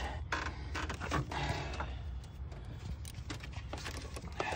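Scattered light clicks and scrapes of a hand tool tightening a hose clamp on a radiator hose, over a steady low hum.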